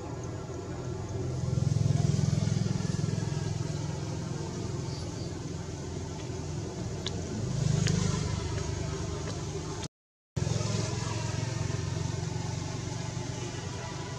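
Low rumble of motor vehicles passing, swelling about 2 s in and again near 8 s. The sound cuts out briefly about 10 s in.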